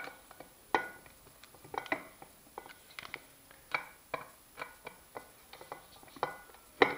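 Sharp metallic clicks and clinks from a hand tool on the steel bolts of a stand mixer's gear housing as they are tightened. The clicks come irregularly, about one or two a second, and a few leave a short ring.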